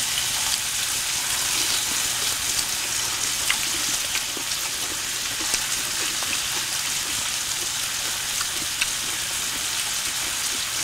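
Marinated meat sizzling on a round grill pan over a portable butane gas stove: a steady hiss with scattered small pops and crackles.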